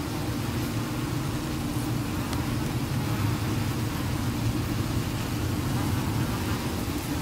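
Steady low rumble of road traffic, with a low hum running under it.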